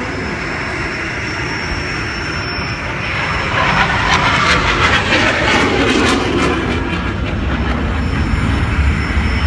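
Fighter jet flying past overhead, its engine noise a steady rushing rumble that swells about three seconds in and stays loud.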